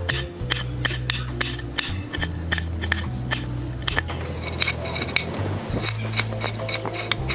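Chef's knife chopping green chilli and then tomato on a wooden cutting board: sharp taps of the blade against the board, about three a second. Background music with sustained low notes plays underneath.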